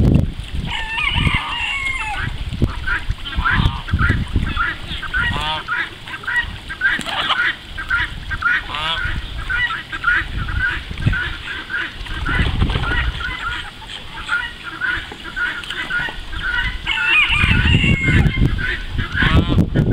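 Call ducks and domestic geese calling together: a steady run of short honks and quacks, about two a second.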